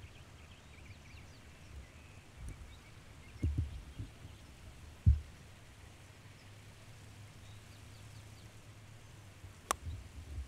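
Golf driver striking a teed ball: one sharp click near the end, over a steady low wind rumble on the microphone with faint bird chirps. A low thump about halfway through is the loudest moment.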